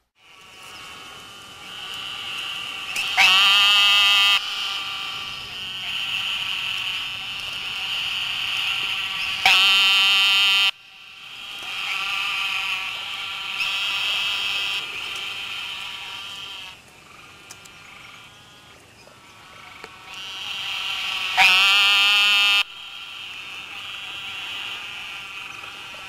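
Eastern narrow-mouthed toads calling: high, nasal buzzes, each held for a second or more, overlapping in a chorus. Three louder calls of just over a second stand out, about three, nine and twenty-one seconds in.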